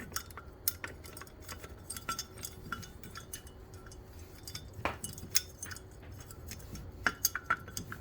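Scattered light clicks and clinks of small hard parts being handled and pushed together, some with a short ring, as a display mounting bracket is test-fitted into a motorcycle top clamp.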